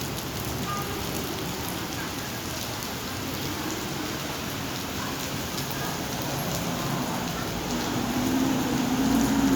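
Rain falling steadily, a dense patter of drops hitting the ground. A low hum grows louder near the end.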